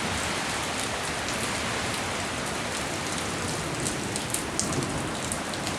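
Steady rushing hiss of a heavy windstorm, with a scatter of light ticks about four to five seconds in.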